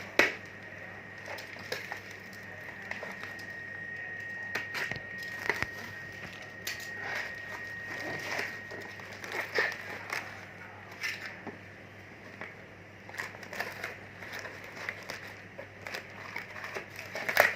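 Handling noises: irregular clicks and knocks with some crinkling. A faint steady high whistle runs through about the first half.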